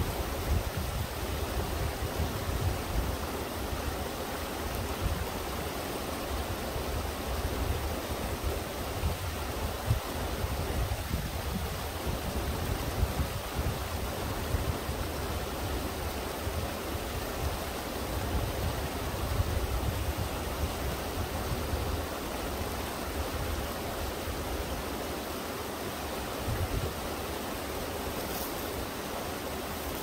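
Small two-tier waterfall in a mountain stream: water sliding over rock slabs and spilling into a pool, a steady rush of flowing water.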